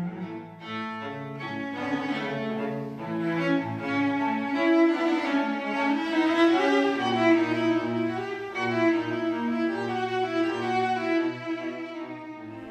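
Bowed cello music: held notes moving from pitch to pitch, with a lower line sounding beneath the melody.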